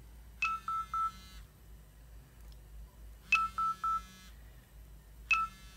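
Symbol handheld barcode scanner sounding its error alert three times, each a sharp high beep followed by quick lower beeps, with a low buzz from its vibration motor. The alert signals a rejected scan of an item already picked, warning against picking too many.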